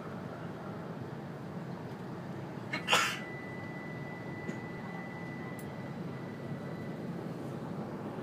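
Steady low noise inside the cabin of an E2-series Shinkansen. A sharp double knock comes about three seconds in, followed by a thin steady high beep lasting about four seconds.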